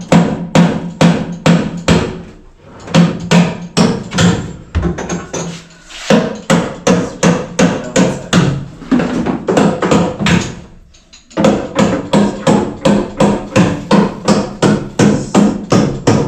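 Hammer blows, struck about three times a second in steady runs with brief pauses between them, each blow ringing briefly.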